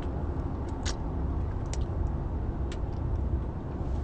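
Steady low rumble with three or four short, faint clicks scattered through it.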